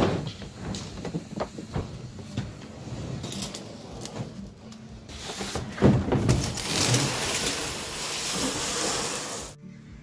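Plastic hull of a Pond Prowler boat knocking and bumping as it is tipped onto its side, then sliding with a long scrape for about four seconds that stops abruptly near the end.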